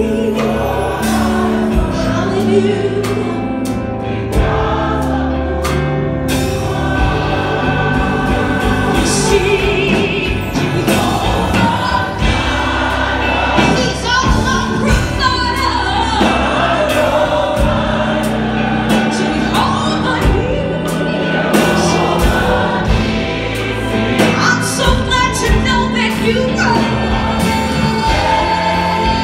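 Gospel choir singing in full voice over live band accompaniment, with a steady bass line and regular percussive hits under the voices.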